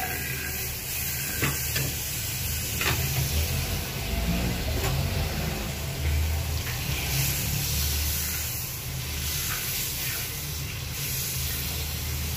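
A block of butter sizzling and bubbling as it melts in a hot wok, a steady hiss, with a few sharp clicks in the first few seconds.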